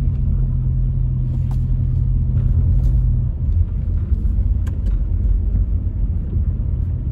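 Car cabin road noise while driving slowly on a wet residential street: a low rumble of tyres and engine. A steady low hum drops away about three seconds in, while the rumble goes on.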